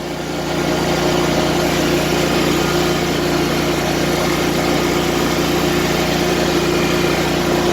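Riding lawn mower engine running steadily, a little louder after the first second.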